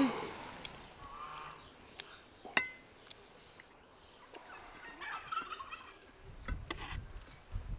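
A turkey gobbling twice, about a second in and again around five seconds in, with sharp clinks of a metal serving spoon against the pan and plates.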